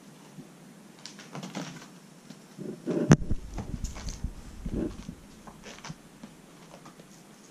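A kitten scampering and pouncing after a cat teaser on tatami, with soft scuffs and rustles, a sharp knock about three seconds in, then a second or two of dull thuds as it grapples against the cat tower and a cushion.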